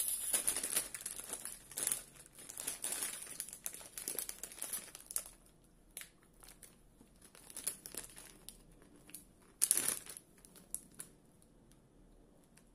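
Plastic snack bag crinkling as it is pulled open and handled, a dense crackle for the first few seconds, then scattered rustles with one sharp crinkle about ten seconds in.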